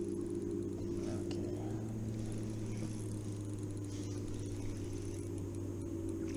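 Yamaha 115 outboard motor running steadily at trolling speed, a constant low hum, with faint light ticking of a spinning reel as a hooked fish is reeled in.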